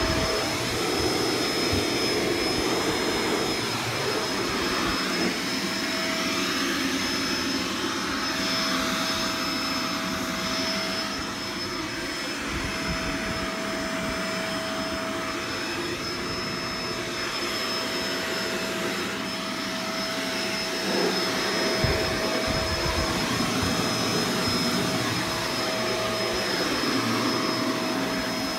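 Vacuum cleaner running steadily, with a constant high motor whine over its airflow noise.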